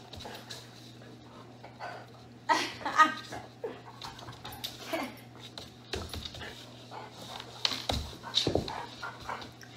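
A large dog whining and grunting while it plays over a person on the floor. Its claws click on a hardwood floor, and there are a couple of dull thumps near the end as it drops down to lie on the floor.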